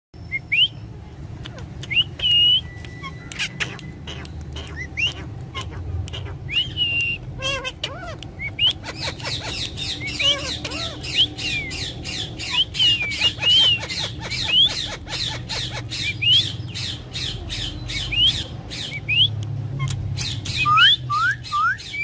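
Alexandrine parakeet calling. A few short rising calls and a couple of held whistle-like notes come first, then from about eight seconds in a fast run of short, rising, harsh chirps and squawks, several a second.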